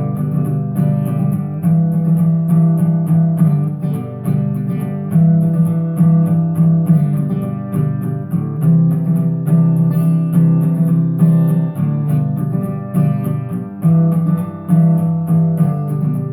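Instrumental music led by plucked acoustic guitar, with notes struck every fraction of a second over a held low line.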